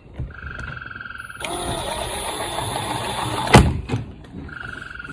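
Cordless power driver driving mounting screws into a kayak. Its motor whines in short runs, with a louder run of about two seconds that ends in a sharp knock. A second short run comes near the end.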